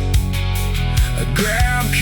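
Music: an instrumental passage of a slow rock song, with sustained held notes, a few sliding notes in the second half, and steady drum beats.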